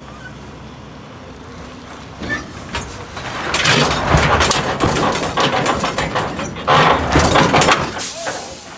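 Semi truck's diesel engine pulling hard on a chain hooked to a trailer's bent DOT rear bumper, with knocks and creaks from the steel as the bumper is dragged back straight. The noise grows much louder about three seconds in and surges again near the end.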